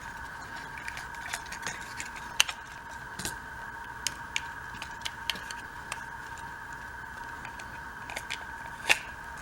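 Scattered small clicks and taps of a disassembled Flip video camera's parts being handled, irregular, with two sharper clicks about two and a half seconds in and near the end, over a faint steady whine.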